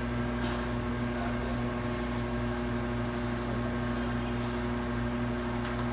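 Steady electric machine hum, holding two even tones over a low rumble, with a few faint clicks.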